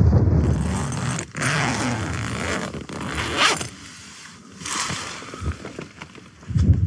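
A Hilleberg tent's door zip being pulled open in several rasping strokes. Wind buffets the microphone with a low rumble at the start and again at the very end.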